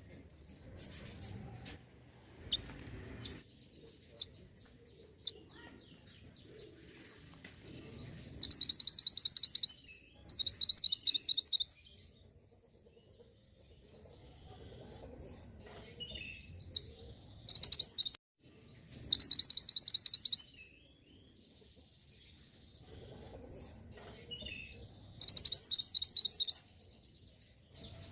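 Mountain mantenan (pied bushchat) calling, played as a lure to draw a response. The calls come as five bursts of rapid, high, evenly repeated chattering notes, each a second or so long, with soft scattered chirps between.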